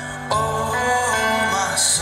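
Background music: a melody comes in about a third of a second in over held bass notes.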